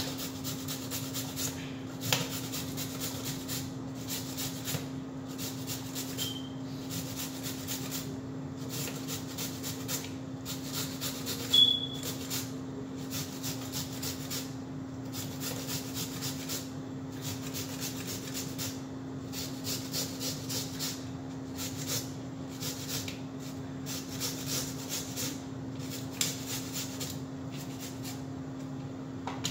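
A carrot being grated by hand on a flat metal grater: a steady run of short rasping strokes under a steady low hum. One brief high squeak about twelve seconds in.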